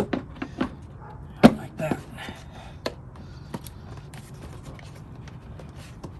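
Hard plastic knocks and clicks of a car's air filter box lid being worked into place by hand. The clicks come in a quick cluster, the loudest about a second and a half in, then thin out to a few light taps.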